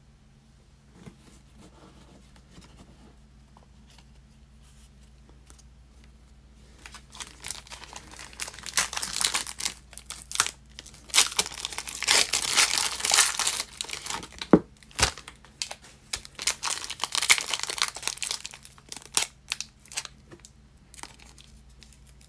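Foil trading-card pack wrapper being torn open and crinkled by hand: quiet for several seconds, then crackling tearing of the foil from about seven seconds in, loudest midway, trailing off into scattered crinkles.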